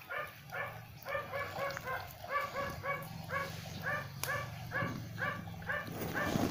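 A small dog yapping over and over, short high barks at about three a second, with a steady low hum underneath.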